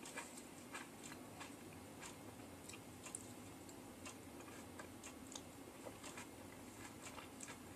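Near silence: faint, irregular ticks and clicks, several a second at odd spacing, over a low hiss. There is no audible club strike.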